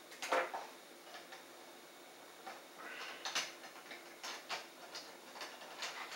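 Scattered clicks and light taps of a plastic fletching jig and arrow parts being handled, the loudest about a third of a second in, with a brief rustle around three seconds.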